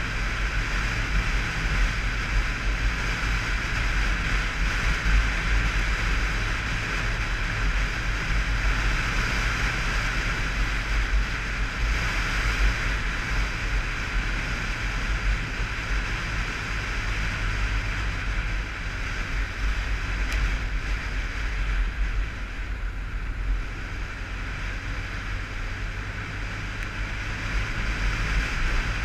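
Wind rushing and buffeting over a helmet-mounted action camera on a moving Honda motorcycle, with the engine running steadily underneath. It eases off a little for several seconds past the middle and picks up again near the end.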